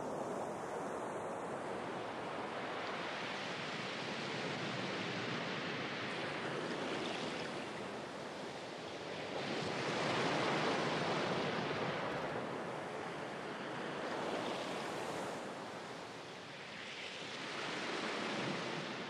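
Small waves washing onto a sandy beach. The wash swells and fades every three to four seconds and is strongest about ten seconds in.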